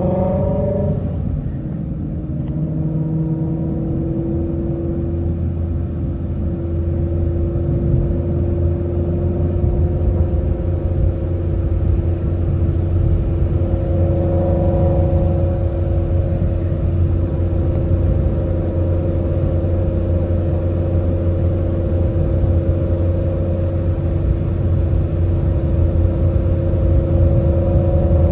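Ford Shelby GT350's 5.2-litre flat-plane-crank V8 heard from inside the cabin, cruising at a steady engine speed with a steady drone over low road rumble.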